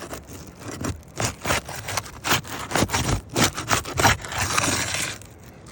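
A tool scraping under brittle asphalt roof shingles to break their seal, in short repeated strokes and then one longer scrape near the end.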